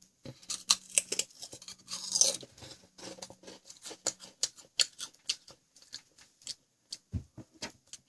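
Crunchy Ogamja potato snack being chewed close to the microphone: a run of irregular crisp crunches. There is a short low thump about seven seconds in.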